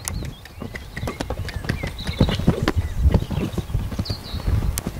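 A young pony's hooves thudding irregularly on a sand arena as it moves loose around the jumps.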